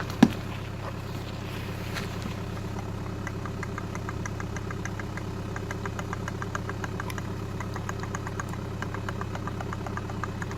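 Car engine idling steadily, with one sharp click just after the start and, from about three seconds in, a quick run of light ticks, several a second, over the idle.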